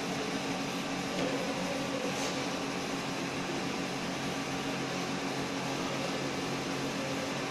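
Steady low machine hum with an even hiss, like a fan or air conditioner running, holding unchanged throughout.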